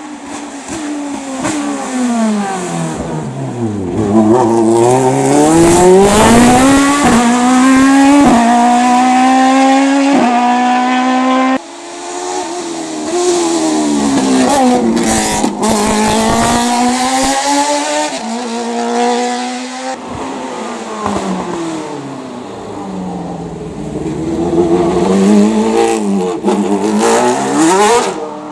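Hillclimb race car engines, heard in three runs. In each, the engine note falls as the car slows into a bend, then climbs hard as it accelerates away, with quick upshifts. The sound breaks off suddenly about a third of the way in before the next car is heard.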